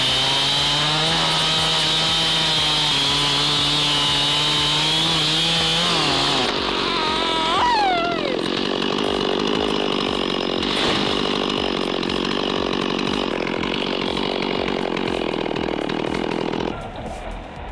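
A gasoline chainsaw held at full throttle, a steady high whine for about six seconds. Then its pitch sweeps up and down and it settles into a rougher, lower note as the chain loads up cutting wood, dropping away near the end.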